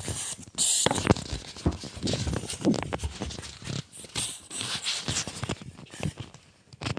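Scratching and rustling of a phone being handled and swung about, with fingers and clothing rubbing against its microphone in short, uneven bursts.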